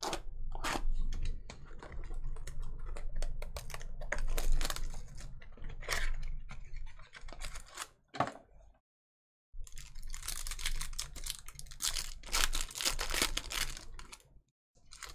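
Rapid, irregular clicks and rustling from hands at work on a desk. The sound cuts out completely for about half a second near the middle.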